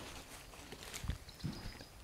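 Footsteps of people walking on plantation ground: a few soft thuds about a second in.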